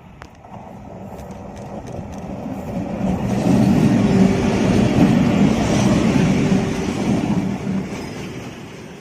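A WAP-7-hauled Indian Railways superfast express train running at speed, its wheels rumbling on the rails. The track noise swells to its loudest in the middle and eases off toward the end.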